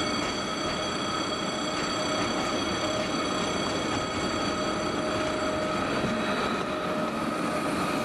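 Model train running on a layout: a steady whine with even overtones over the constant rolling noise of wheels on track.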